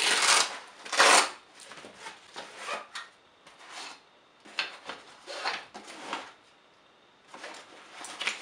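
Fabric magazine pouches being handled and lifted out of a padded rifle bag's pocket: rustling and scraping of heavy fabric in a series of short bursts, loudest in the first second and a half, with a brief pause about two-thirds of the way through.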